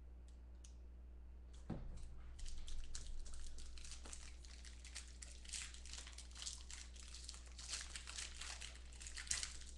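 A trading card pack's foil wrapper being torn open and crumpled by hand: a soft knock about two seconds in, then steady crinkling and tearing.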